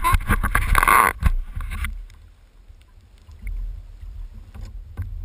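Water splashing and sloshing around a landing net holding a chinook salmon beside a kayak, loud for about the first two seconds. After that it drops to a low muffled rumble with a few faint knocks.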